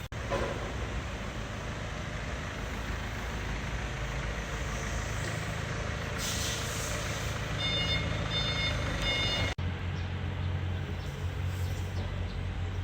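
Heavy vehicle engine running steadily. About six seconds in there is a short burst of hiss, and then a reversing alarm beeps three times.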